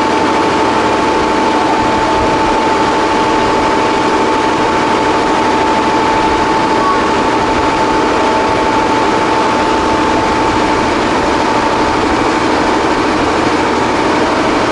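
Steady running noise from inside a moving vehicle, with a constant high whine over an even rumble.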